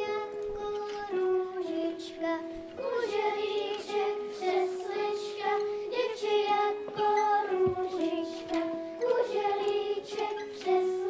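Children singing a slow song in unison, with a light instrumental accompaniment.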